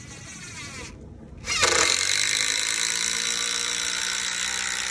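Cordless DeWalt impact driver sinking a 4.5-inch FastenMaster structural screw into green white oak with no pilot hole. It runs lighter for about the first second, then from about a second and a half in it impacts loudly and steadily as the screw bites into the hard wood.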